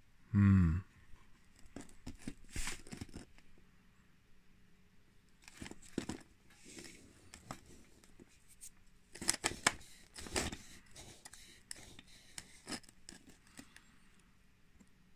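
Scattered scraping, rubbing and clicking as fingers handle a 3D-printed plastic dozer track frame and rub over its grit-caked steel wear plate, coming in clusters about three, six and ten seconds in. A brief vocal sound near the start is the loudest thing.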